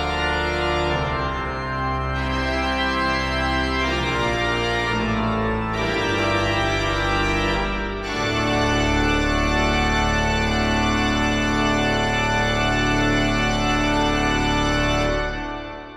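Pipe organ playing full sustained chords over a deep pedal bass, closing a piece. It moves through a few chord changes into a long final chord held for about seven seconds. The chord is released near the end, and the church's reverberation fades away after it.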